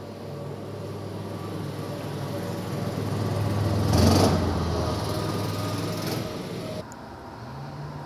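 A motor vehicle driving past, growing louder to its closest point about halfway through, then fading. Near the end the sound cuts abruptly to a quieter, steadier low hum.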